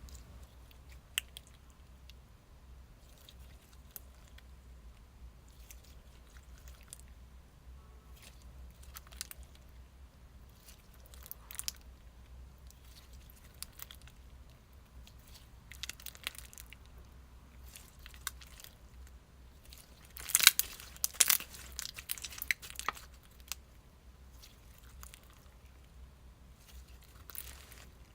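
Clear water-jelly slime with jelly pieces being squeezed and poked by hand, giving scattered sticky crackles and wet clicks, with a louder burst of squelching crackles about two-thirds of the way in.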